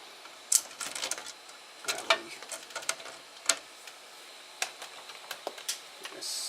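Irregular clicks, taps and knocks of a hard acrylic print bed being handled and fitted onto a 3D printer's bed plate, with a short rustling hiss just before the end.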